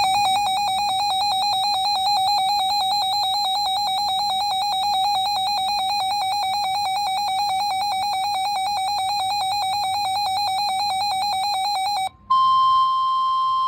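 Weather-radio alert tones announcing a severe thunderstorm warning. A loud, buzzy alarm tone warbles rapidly for about twelve seconds and cuts off, then a steady single-pitch tone of about 1050 Hz, the NOAA Weather Radio warning alarm tone, sounds near the end.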